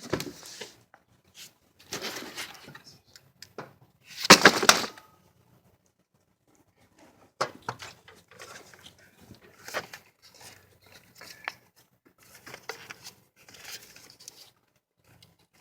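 Scattered clicks, scrapes and rustles of parts and tools being handled by hand, with one louder noisy scrape of about half a second roughly four seconds in.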